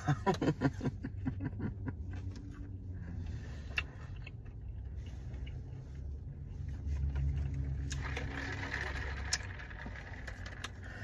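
Someone chewing fast food with small crunches and mouth clicks, over a low steady rumble inside a car.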